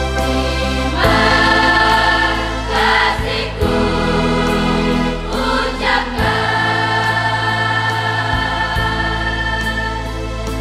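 A school choir of teenage students singing a slow song in parts, over steady low backing notes; the voices swell in about a second in.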